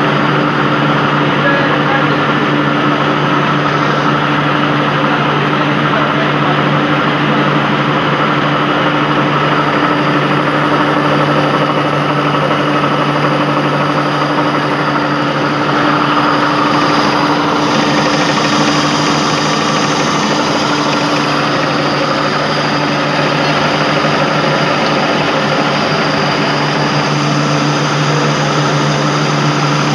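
Wheat flour (atta) mill plant running: electric motors, belt drives and grinding mills make a loud, steady mechanical din with a constant low hum.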